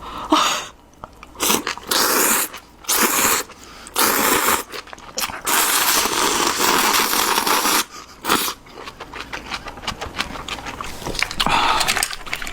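Close-miked eating of ramen wrapped in kimchi: several long, loud slurps of noodles, then crunchy chewing with many small clicks.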